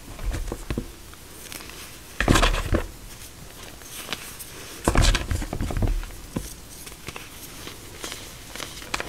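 Fresh chalk blocks being squeezed and crumbled by hand into loose powder, in a few separate bursts of soft, grainy crunching. The loudest crunches come about two seconds in and about five seconds in.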